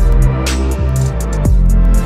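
Electronic music with a deep bass line, kick drums, a sharp snare-like hit about half a second in, and fast hi-hat ticks over it.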